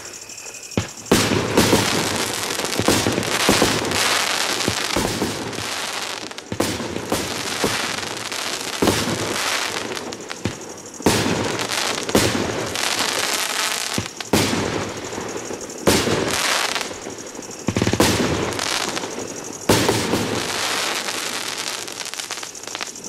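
A 25-shot, 30 mm consumer fireworks battery (cake) firing, from about a second in: shot after shot in quick succession, sharp bangs with dense crackling between them.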